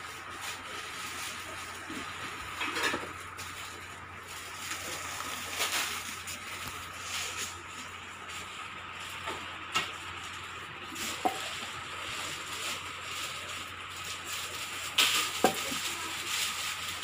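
Shop background noise with a faint steady whine, broken by a few scattered sharp clicks and clinks, the loudest two near the end.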